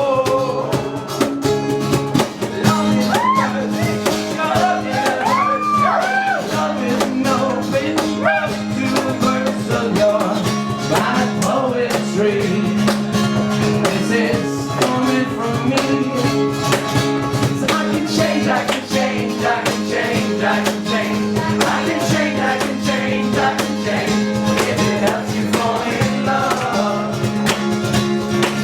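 Live band playing an instrumental passage: guitars over a held low note and a steady beat. A lead line bends up and down in pitch for roughly the first ten seconds.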